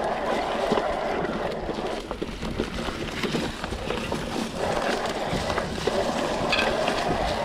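Mountain bike rolling over rough, overgrown ground: tyres running through undergrowth and twigs, with plants brushing against the bike and frequent small knocks and rattles.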